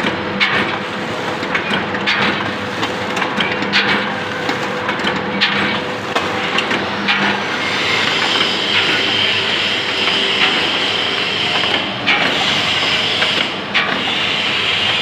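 Automatic packing machine bagging macaroni, running with a steady mechanical noise and sharp clacks about every one and a half seconds. A higher whine comes in about eight seconds in.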